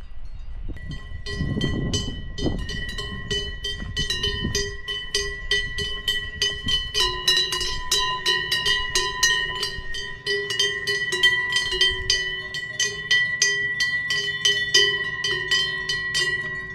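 Metallic bell-like ringing, struck rapidly and regularly several times a second, with the ringing tones holding steady between strikes.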